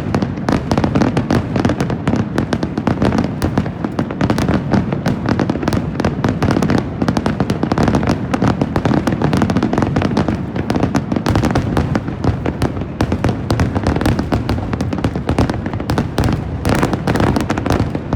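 Aerial fireworks bursting over the sea in a dense, unbroken barrage of overlapping booms and crackling, loud throughout: the finale of a fireworks display.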